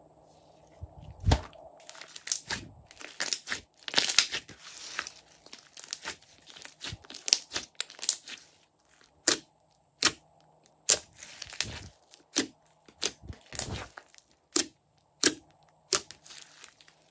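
Hands stretching, pressing and poking a thick mass of slime, giving irregular sticky pops and crackles that start about a second in.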